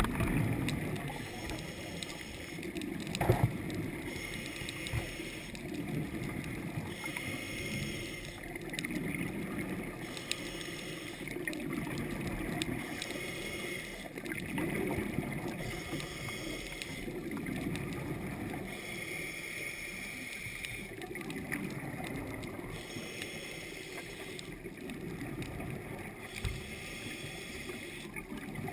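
Muffled underwater noise picked up through a camera housing: a low rumble that swells and fades every few seconds, with faint bubbling. There is one sharp knock about three seconds in.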